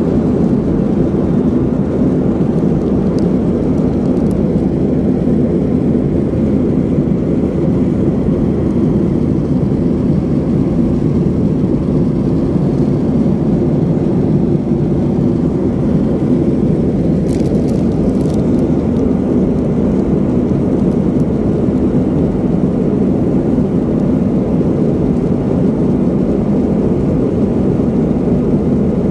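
Jet airliner cabin noise in flight: the steady, deep rush of engines and airflow heard from a window seat.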